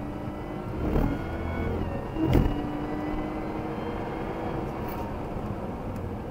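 Jaguar XE S's supercharged 3.0-litre V6 heard from inside the cabin at speed: its pitch climbs, then drops as it shifts up about two seconds in, with a short thump just after, and then it runs at a steady pitch.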